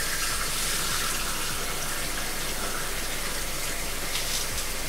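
Kitchen tap running steadily while rice is rinsed in a pot.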